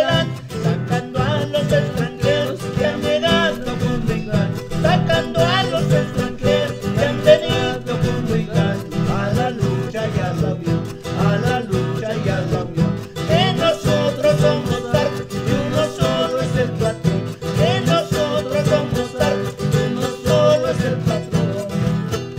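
Acoustic guitars strumming a steady beat, with a plucked melody line over it, in an Andean folk song played by a string trio; the passage here has no lyrics.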